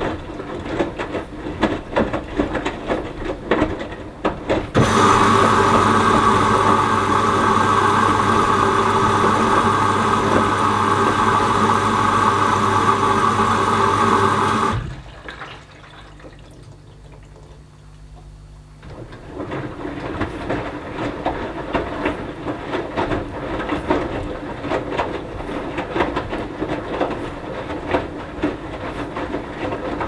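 Hoover Dynamic Next front-loading washing machine in its wash phase, the drum tumbling wet laundry with soft irregular thuds and sloshing. About five seconds in, a loud steady humming rush of water starts inside the machine, runs for about ten seconds and stops suddenly. After a few quieter seconds with the drum at rest, the tumbling starts again.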